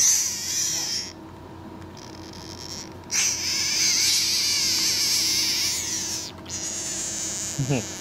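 Brazilian horned frog giving its defensive scream: harsh, high-pitched squealing calls made with its mouth open while it is being prodded, a threat display. One call comes in the first second, then a long call from about three seconds in, and more near the end.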